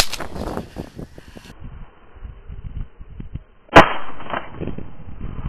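Shotgun fired at passing ducks: a loud report about four seconds in with a short rolling tail, and a sharper crack at the very start. Rustling and handling knocks fill the gap between.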